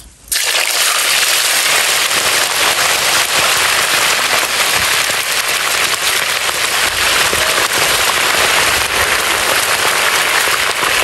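Raw chicken wings dropped into a large wok of hot oil, which breaks out suddenly into loud, dense sizzling and crackling that keeps going steadily as the wings deep-fry.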